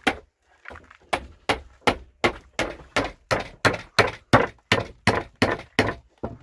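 Hammer blows on wooden roof boards laid over pole rafters, a steady run of sharp strikes about three a second as the boards are nailed down, stopping shortly before the end.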